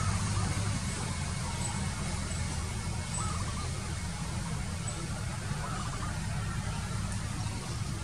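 Steady low background rumble, with faint, brief bird calls about three seconds in and again near six seconds.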